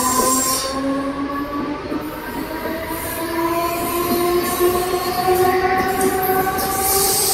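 A Mumbai suburban electric multiple-unit local train gathering speed: its traction motors whine in a stack of tones that rise steadily in pitch, over wheel and rail noise. A high hiss swells near the end.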